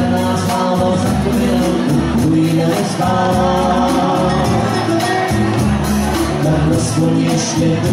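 Live dance-band music: a woman and a man singing a duet into microphones over keyboard accompaniment with a steady beat.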